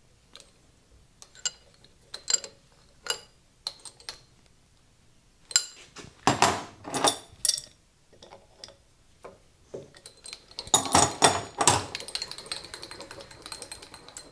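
Metal-on-metal clicks and clinks from a wrench and hands working the handwheel of a South Bend lathe tailstock. There are two clusters of louder clanks, around the middle and about eleven seconds in, then a quick, faint ticking rattle near the end as the handwheel is cranked and the ram moves out on its new Acme-threaded screw.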